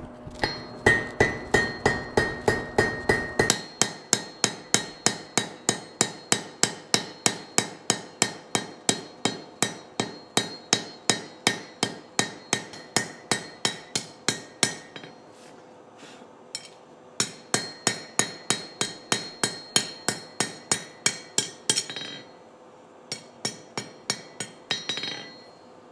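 Blacksmith's hammer striking hot steel on an anvil in a steady rhythm of about three blows a second, with the anvil ringing after each blow, as the round stem of a forged leaf hook is drawn out and smoothed. The hammering breaks off briefly about 15 seconds in and again about 22 seconds in.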